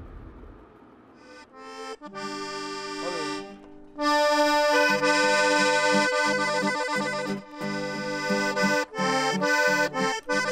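Piano accordion playing a tune over a rhythmic low accompaniment, coming in softly about a second in and playing full chords from about four seconds in.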